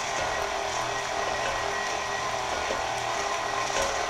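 KitchenAid Ultra Power stand mixer running steadily, its flat beater churning cream cheese in a glass bowl.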